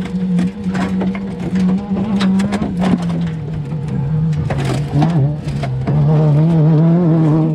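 Trophy truck's engine running at a steady speed, its pitch dropping a step about three seconds in and turning louder and wavering near the end, with scattered knocks and rattles over it.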